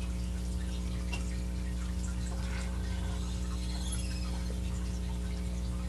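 Steady low electrical hum from the motorized tombstone peeper prop, with faint irregular clicks and ticks from its mechanism and a brief faint high whine about four seconds in.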